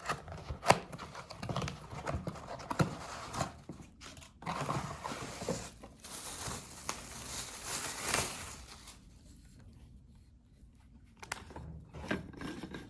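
Irregular knocks and clicks of small objects being handled and set down, with a stretch of rustling from about six seconds in, then a quieter pause before a few more knocks near the end.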